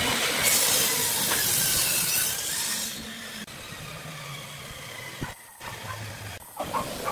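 Table saw cutting through a glued-up wooden block with a loud hiss, then, once the cut is done, the blade spinning down with a low hum that falls in pitch.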